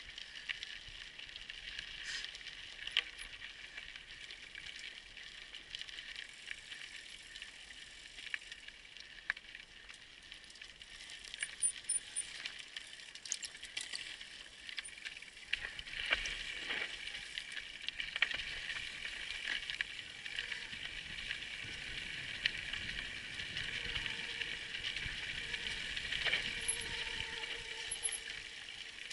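Mountain bike riding over rocky trail, its frame, chain and parts rattling and clicking with each rock and bump, over a steady high-pitched hiss. About halfway through, a rougher low rumble of tyres on dirt and rock comes in as the bike speeds up.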